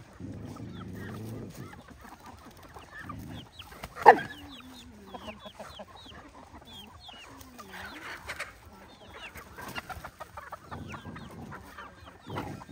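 Chickens clucking, with many short high chirps throughout and one sharp, loud sound about four seconds in.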